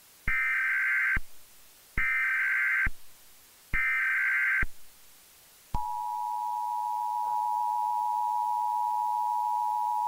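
Emergency Alert System tones: three shrill digital header bursts of about a second each, then the steady two-tone EAS attention signal starts about six seconds in, marking a national Emergency Action Notification.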